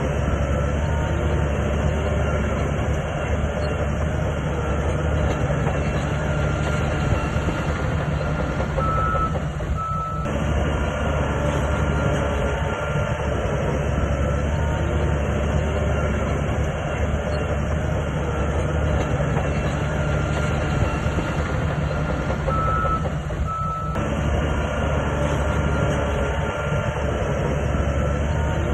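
Heavy diesel engine of a SHANTUI bulldozer running steadily under load, with the rattle of its tracks. Two short high beeps come about nine seconds in and again about twenty-three seconds in.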